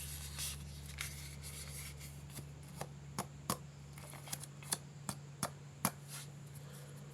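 Hands handling plastic piping bags for slime: a crinkly rustling at first, then a run of about eight sharp clicks or snips a fraction of a second apart, over a low steady hum.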